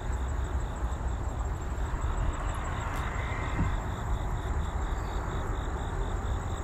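Outdoor background noise: a steady low rumble and hiss, swelling briefly in the middle, with a faint high chirping that pulses about four or five times a second.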